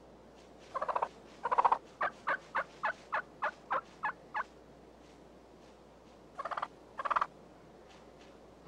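Wild turkey calling: two short rattling gobbles about a second in, then a run of about ten short notes, some four a second, fading out, and two more rattling gobbles near the end.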